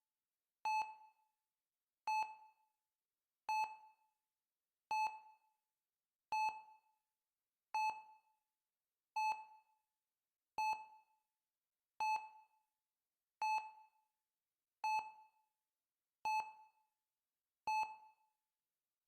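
Heart-rate monitor beeping steadily, one short bright beep about every one and a half seconds, each fading quickly.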